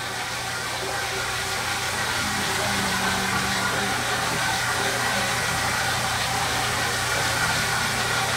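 Single-disc rotary floor buffer running steadily, its pad buffing over a cotton rag on a hardwax-oiled hardwood floor: the final buff that wipes the excess oil off. A constant motor hum with an even whir that grows a little louder over the first couple of seconds.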